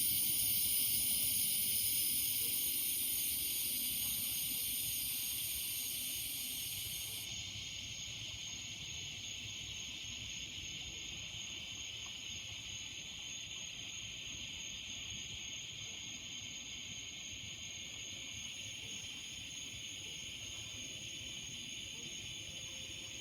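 Chorus of cicadas, a continuous high buzzing hiss. A higher-pitched layer drops out about seven seconds in, and the chorus eases slightly in loudness over the first several seconds before holding steady.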